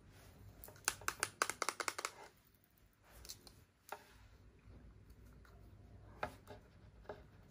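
Light plastic clicks and taps as a plastic hair-straightening brush is handled by long-nailed fingers: a quick run of about ten clicks in the first two seconds, then a few scattered single taps.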